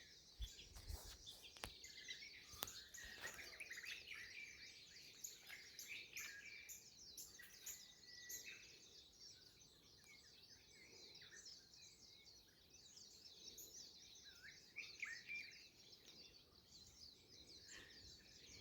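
Faint chorus of many small birds chirping and trilling, with quick overlapping calls that go on without a break.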